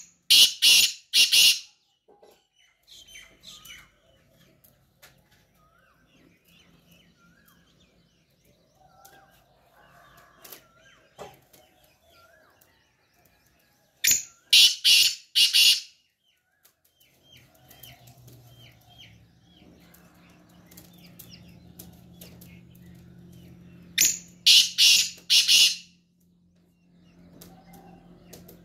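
Black francolin calling three times, about ten seconds apart. Each call is a loud, harsh, grating phrase of four or five notes. Between the calls, other small birds chirp faintly, and a low steady hum sets in about halfway through.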